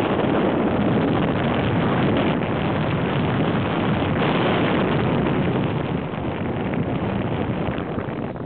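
Steady rushing noise of a vehicle driving along a road, with wind on the microphone, easing a little near the end.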